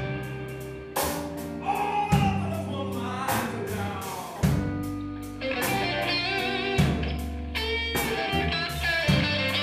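Live band playing a slow blues on electric guitar, bass and drums, with regular drum hits and wavering, vibrato-laden high notes from about halfway in.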